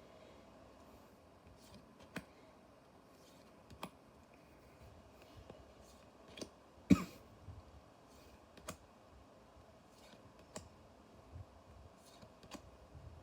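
Trading cards being handled and sorted: scattered faint clicks and taps as cards are flicked through and set down on a table, with one louder knock about seven seconds in.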